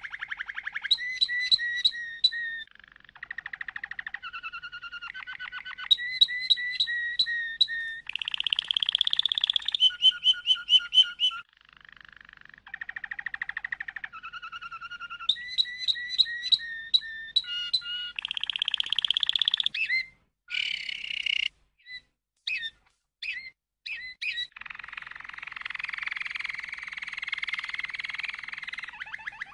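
Domestic canary singing a long song made of runs of rapidly repeated notes, each run at a new pitch for a second or two. About two-thirds of the way in the song breaks into a few scattered chirps with short gaps, then goes into a long, fast rolling run near the end.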